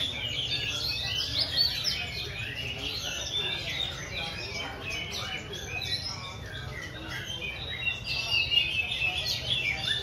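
Many caged songbirds singing and chirping at once, a dense overlapping chorus of quick whistles and chirps over a low steady background hum.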